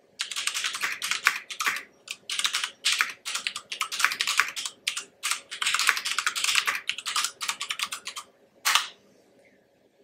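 Fast typing on a CoolerMaster QuickFire Rapid tenkeyless mechanical keyboard with Cherry MX Brown switches: a rapid clatter of keys clacking as they bottom out, in several runs with short pauses, stopping about nine seconds in.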